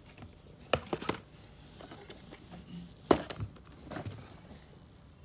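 A few sharp knocks and taps, the loudest about three seconds in, from handling in a small room.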